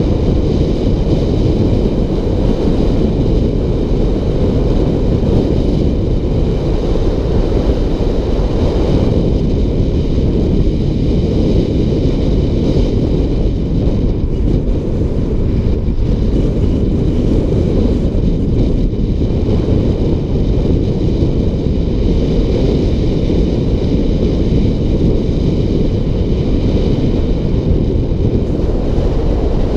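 Wind buffeting the microphone of a rider coasting fast downhill: a loud, steady, low rush with no break.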